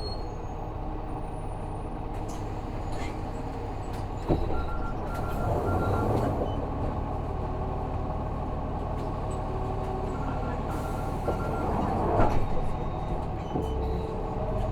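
Isuzu Erga city bus with its 6HK1 diesel engine idling at a stop, heard from inside the cabin, with two short runs of electronic beeps. About twelve seconds in there is a burst of air, typical of the air brakes releasing, and the bus pulls away with the engine note rising.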